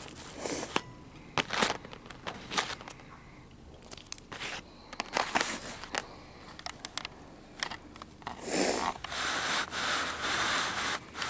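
Small plastic toys and props being handled: scattered clicks, taps and scrapes, then a longer rustle near the end.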